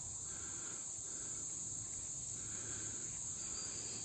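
Outdoor insect chorus, crickets or similar insects trilling in one steady high-pitched drone, with a fainter lower call coming and going.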